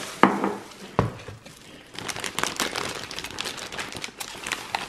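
Thin plastic carrier bags crinkling as takeout drink cups are handled inside them, thickest from about two seconds in, with a couple of sharp knocks in the first second.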